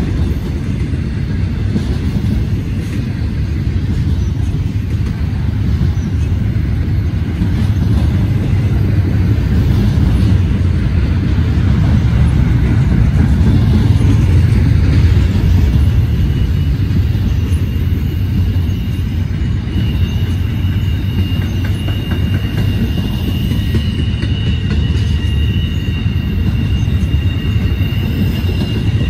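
Double-stack intermodal freight train's container well cars rolling past with a steady low rumble. About two-thirds of the way through, a high, steady wheel squeal sets in as the flanges rub through a tight curve.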